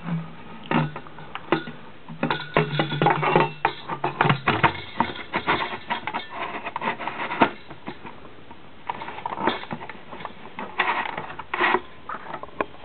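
Hands seating a metal halide bulb in the black plastic E27 lampholder of a street-lamp fitting: plastic rubbing and scraping, with a run of irregular clicks and knocks. A low steady hum runs under it for the first four seconds or so.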